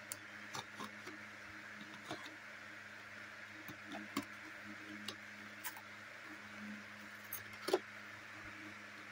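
Cardboard shipping box being handled and its flaps pulled open by hand: scattered light clicks and taps, the loudest one near the end, over a steady low hum.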